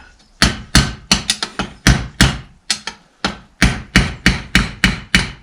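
Hammer blows on metal, about three to four a second, driving a part home into its housing in a tractor bull pinion assembly.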